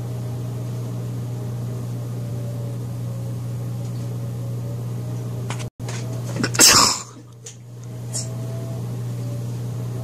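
Steady low appliance hum, like a fan or air conditioner. About two-thirds of the way through, a single short, loud breathy burst cuts in, and the hum drops away for about a second before returning.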